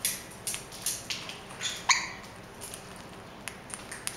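Conure's beak nibbling and cracking seeds off a millet spray: a string of irregular small clicks and crackles, denser in the first two seconds.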